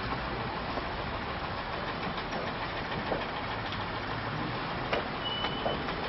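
Steady rumble and hiss of a moving vehicle, with scattered light clicks and a short high beep about five seconds in.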